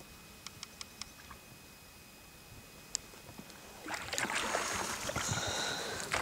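Water splashing around a small rowing boat on a river. A few faint knocks come first; from about four seconds in there is much louder splashing and rushing water.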